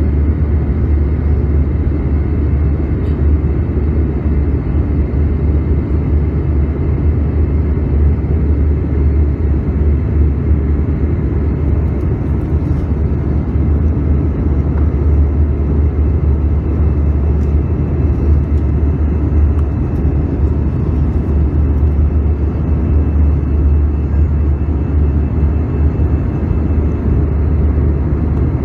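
Airbus A320 in flight heard from inside the passenger cabin: a steady low rumble of jet engine and airflow noise with a faint high whine.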